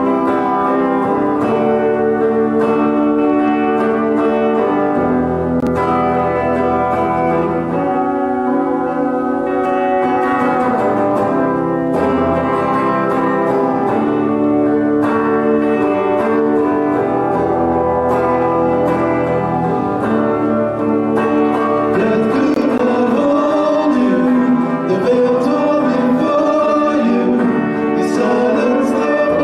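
Live contemporary worship music from a small church band: acoustic guitar and keyboard accompanying a man singing into a microphone.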